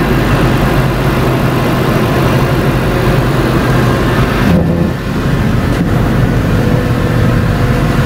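2003 Ford Thunderbird's 3.9-litre V8 running loudly under throttle, with a brief dip and change in pitch about five seconds in. The electronic throttle is responding rather than defaulting, with a spike-suppression diode fitted across the A/C compressor clutch.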